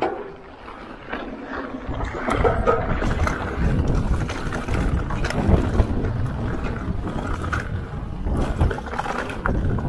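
Rocky Mountain mountain bike riding fast over a rocky dirt trail: a low rumble of wind buffeting the camera's microphone and tyres over the ground, with many short clicks and knocks as the bike rattles over rocks and bumps. It grows louder over the first two seconds as the bike gathers speed.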